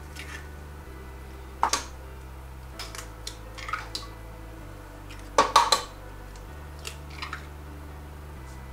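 Eggs cracked one after another against the rim of a stainless-steel food-processor bowl: sharp taps and shell cracks a few seconds apart, the loudest cluster a little past halfway.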